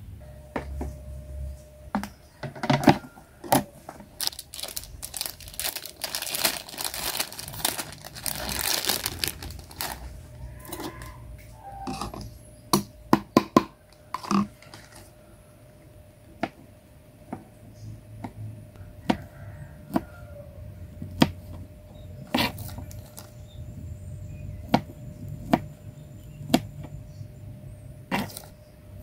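Food preparation by hand: a plastic bag crinkling and tearing for several seconds, then a kitchen knife cutting meatballs on a plastic cutting board, a sharp tap every second or two.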